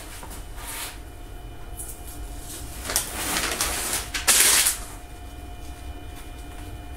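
Strips of tape being peeled up from a CNC spoilboard: a few rasping rips, the longest about three seconds in and the loudest just after four seconds. A faint steady hum lies underneath.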